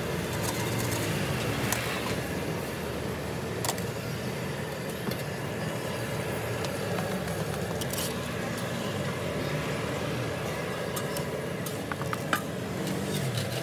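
Steady street traffic noise with a low rumble, broken by a few sharp clicks and clinks of utensils.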